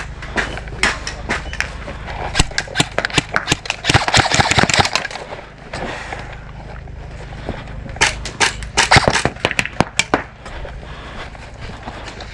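Airsoft guns firing: a rapid run of sharp clicks and pops that comes in two dense spells, one about two to five seconds in and another about eight to ten seconds in, with single shots in between.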